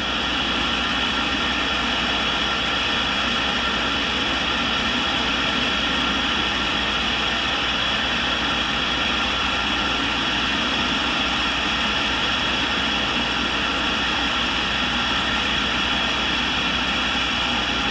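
Tool and cutter grinder running, its grinding wheel spinning with a steady whine and hiss that holds an even level throughout, as the wheel is brought up to a high-speed steel end mill for the first light touch.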